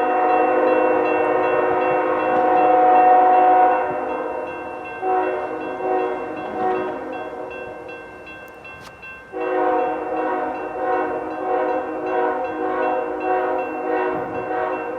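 Multi-chime air horn of a CSX GE diesel locomotive blowing long blasts as the train approaches, a chord of several notes. The horn is loud at first, turns softer and choppy partway through, then comes back full and steady for the last third.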